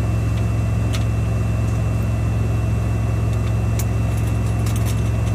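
Semi truck's diesel engine idling, a steady low drone heard from inside the sleeper cab. A few light metallic clicks of the screws and bracket being handled on the CB radio.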